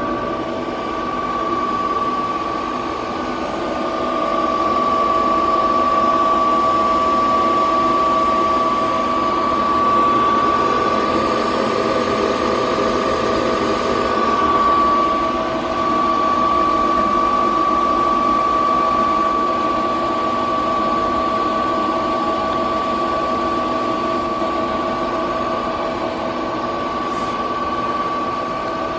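Star SB-20R Type G Swiss-type CNC automatic lathe running: a steady high whine over a lower hum and hiss, which wavers briefly about halfway through.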